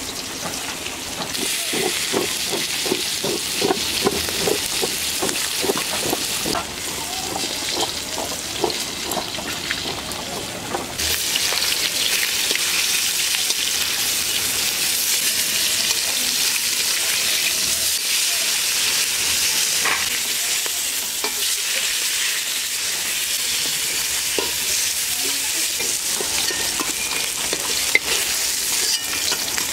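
Steaks of rohu fish frying in hot oil in a wok, a steady sizzle with a spatula now and then scraping and tapping as the pieces are turned. The sizzle grows louder and brighter about eleven seconds in.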